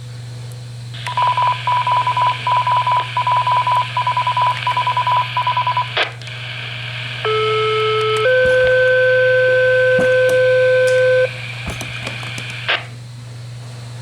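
Fire dispatch radio alert tones heard over a scanner: about five seconds of rapid beeps at one pitch, then a two-tone page, a short lower tone followed by a slightly higher tone held about three seconds. Sharp clicks come between and after the tones, over a steady radio hum.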